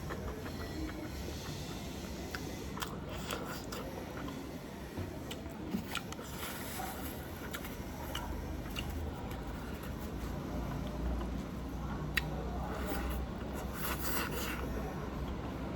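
Close eating sounds of chicken biryani: chewing and biting, with scattered small clicks and scrapes, over a low steady hum.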